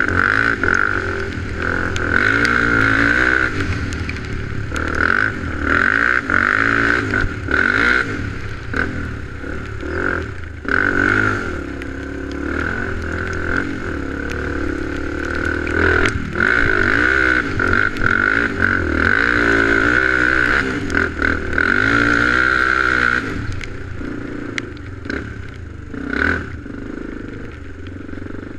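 ATV engine running on a trail ride, its pitch rising and falling over and over as the throttle is worked, with short clattering knocks from the machine going over bumps.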